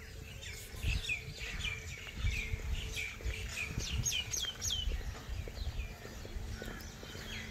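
Small birds chirping over and over, short high notes that mostly fall in pitch, several a second, over a low uneven rumble.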